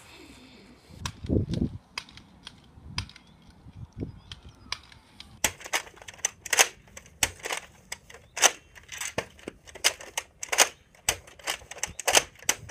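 Plastic Nerf dart blaster clicking: a run of sharp clicks, sparse at first and coming about twice a second from about five seconds in. A low thump sounds about a second in.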